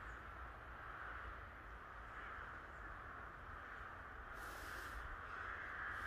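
A large flock of crows cawing continuously in a dense, overlapping chorus, with a brief hiss about four seconds in.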